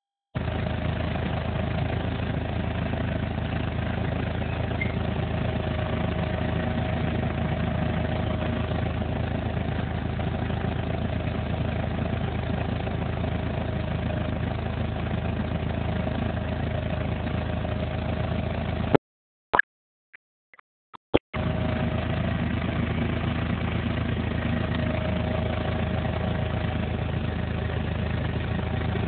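A vehicle engine idling steadily. The sound cuts out for about two seconds around two-thirds of the way in, with a few clicks, then the same idle resumes.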